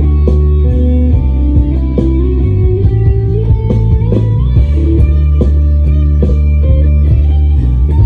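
Jay Turser Les Paul-style electric guitar played through an amp, picking a moving melodic line with many separate notes over a sustained bass underneath.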